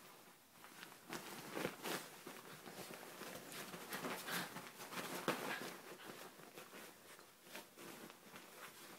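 A ferret and a small dog wrestling on a duvet: irregular rustling of the bedding with soft scuffles and paw thumps, a few louder ones in the middle.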